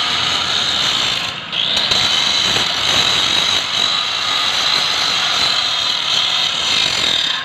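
Handheld angle grinder grinding the welded edge of steel railing frames: a loud, steady high-pitched grinding of the disc on steel, dipping briefly about a second and a half in before biting again.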